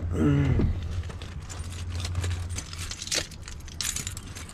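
Keys jingling and clicking as they are handled, with a low steady hum that stops about two and a half seconds in.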